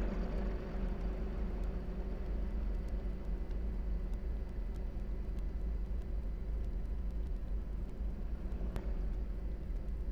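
Steady, low rumbling noise, heaviest in the bass, with faint scattered clicks and one sharper click about nine seconds in.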